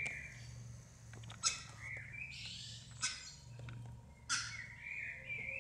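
Birds chirping: three short, sharp chirps about a second and a half apart, with a warbling note after the last one, over a faint low hum.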